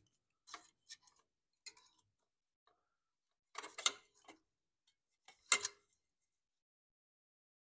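Scattered light clicks and clinks of a lawn mower carburetor being worked onto the engine's intake over a screwdriver shaft: a few faint ticks, then two louder bursts of metal clatter about four and five and a half seconds in.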